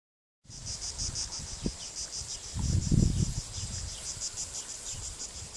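Insects chirping in a fast, even pulse of about eight chirps a second, high-pitched. A louder low rumble comes about three seconds in.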